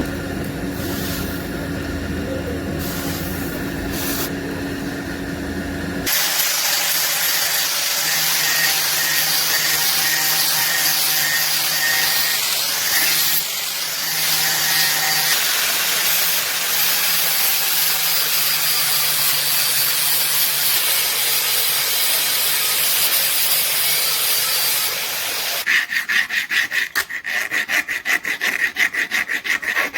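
Metalworking sounds while shaping the razor blade: a humming machine for the first few seconds, then a long, steady, high-pitched abrasive hiss, then quick rhythmic hand-file strokes near the end.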